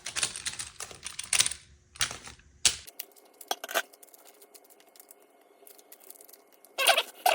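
Hard clicking and clattering of the armor panel's alumina ceramic hexagon tiles knocking against each other and the grid as the panel is handled and flexed: dense clatter for about three seconds, then only scattered light ticks, with a louder burst near the end.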